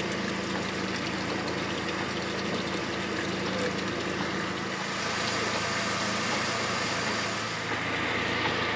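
Motor launch's engine idling steadily while the boat sits tied up at the dock, with a slight shift in its low hum about halfway through.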